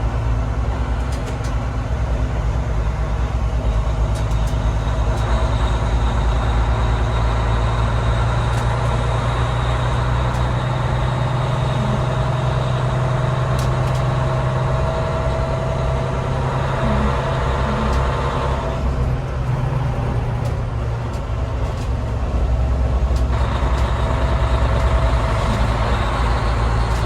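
Fire truck engine running steadily under way, a low drone with road noise. The higher noise drops away about 19 seconds in and returns about 23 seconds in.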